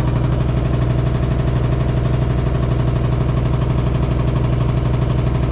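Hitachi SF-150TCV washing machine in high-speed spin, running with a loud, steady low hum and a rapid, even pulsing. It is an abnormal spin noise: the tub sways from side to side and the cabinet vibrates, although the machine has been checked and is level.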